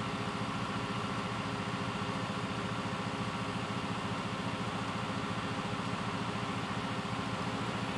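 Flatbed tow truck's engine idling steadily with an even, fast pulse.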